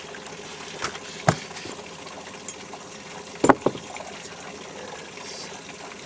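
A few sharp knocks in the boat as a walleye is landed and handled: two about a second in and a louder pair about three and a half seconds in. Steady trickling water with a faint hum underneath.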